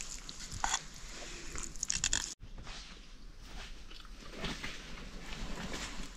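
A wooden spoon scraping and knocking against a steel cooking pot as food is scooped out, in a few short strokes. The sound cuts out abruptly after about two seconds, then gives way to fainter, irregular clinks and rustles of a person eating with a spoon from a leaf plate.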